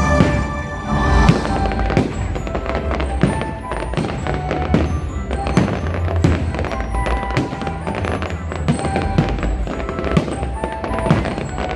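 Fireworks going off in a steady string of bangs and pops, about one or two a second, over music playing throughout.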